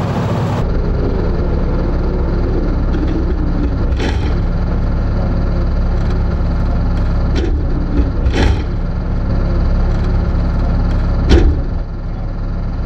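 A vehicle engine running steadily, with a few short sharp knocks, the loudest near the end.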